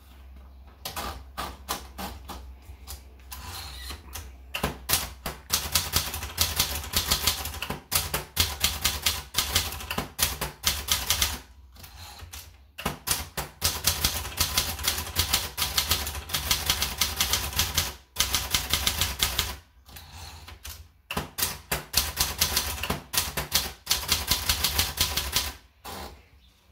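Triumph Tippa manual portable typewriter being typed on: fast runs of key strikes, broken by several short pauses.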